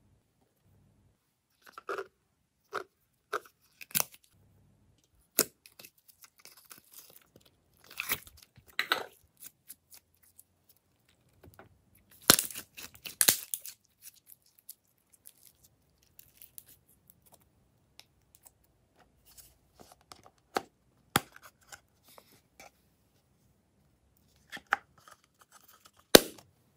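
Slime being handled by hand, with scattered short sticky pops and tearing crackles as it is pulled and squeezed. The densest run of crackling comes about twelve seconds in. A single sharp click near the end is the loudest sound.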